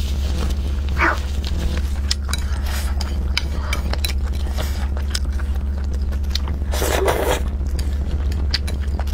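Close-miked mouth sounds of a person eating zhajiangmian noodles: wet chewing and small clicks, with louder slurps about a second in and again near seven seconds. A steady low hum runs underneath.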